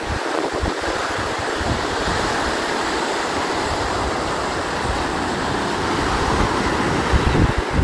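Small waves breaking and washing on a sandy beach, a steady surf wash, with wind buffeting the microphone in low gusts that grow stronger near the end.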